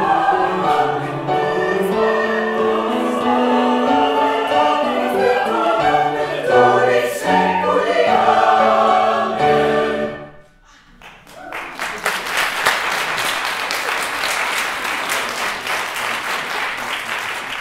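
Mixed choir singing with grand piano accompaniment, ending about ten seconds in; after a brief pause the audience applauds steadily.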